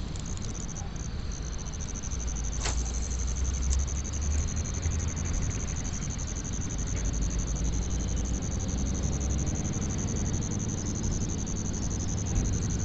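Steady outdoor background noise: a constant high-pitched whine over a low rumble that swells for several seconds, with one sharp click about two and a half seconds in.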